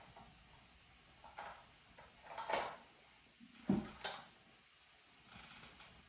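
Quiet handling sounds of objects on a tabletop as a felt-tip marker is picked up: a few soft knocks and one short sliding scrape about two and a half seconds in.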